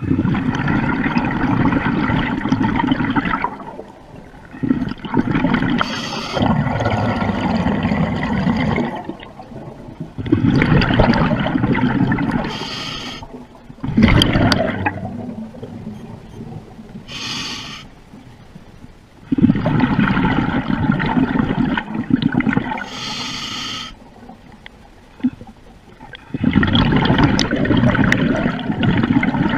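Underwater bubbling and rushing water noise in repeated surges of three to four seconds, with short high hisses between some of them.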